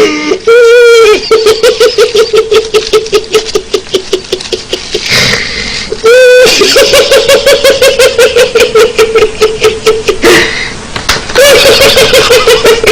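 One person laughing very loudly in a high, rapid, held 'ha-ha-ha' at a near-constant pitch, in three long runs broken by gasping in-breaths about 5 and 10 seconds in.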